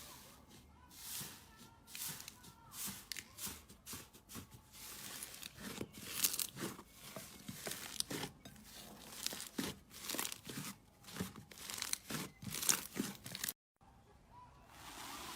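Slime being squeezed and stretched by hand, giving a run of sticky crackles and pops. The sound drops out briefly near the end.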